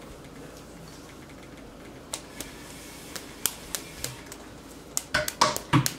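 Light, sharp clicks and taps at irregular intervals, starting about two seconds in, with a quick run of louder knocks near the end.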